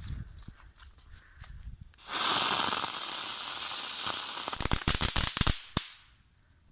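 A small firework going off with a loud, steady hiss that starts suddenly about two seconds in, then a quick string of sharp cracks near the end before it cuts out.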